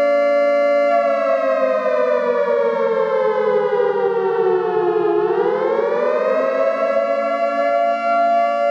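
Siren sound effect played over the stage sound system: a steady pitched tone that slowly sinks in pitch for about four seconds, swings quickly back up, and holds steady again.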